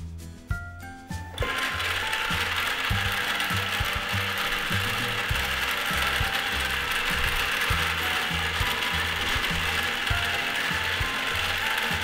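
Toy microwave oven switched on about a second in, then running with a steady mechanical whirring as its turntable turns the pot inside. Background music with a repeating bass line plays throughout.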